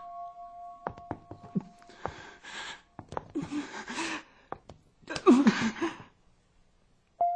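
A person's breathy gasps and heavy breaths, one ending in a short voiced moan about five seconds in. A held music tone fades out in the first two seconds, and there are a few sharp clicks.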